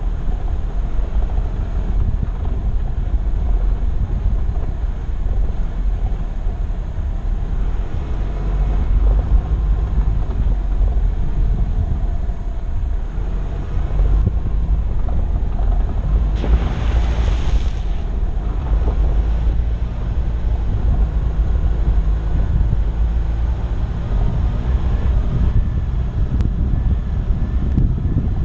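4x4 vehicle driving over a rough dirt and gravel track: a steady low rumble of engine and tyres, with wind buffeting the microphone. A brief hiss rises and falls about two-thirds of the way through.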